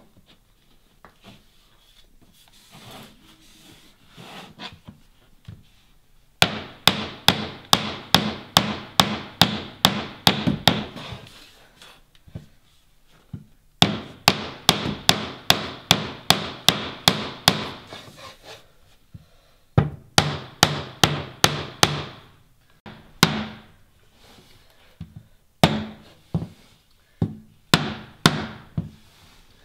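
Rubber mallet striking a metal laminate-flooring pull bar, driving the end plank of a laminate floor tight into its joint at the wall. Runs of sharp knocks, about three a second, come in bursts of several seconds with short pauses between, after a quieter start with light rustling.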